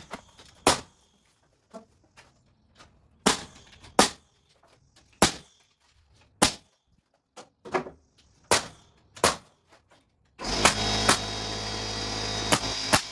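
Pneumatic air nailer driving nails into a wooden frame: about a dozen sharp shots, irregularly spaced, mostly a second or so apart. About ten seconds in, a loud steady motor noise starts and runs under the last few shots.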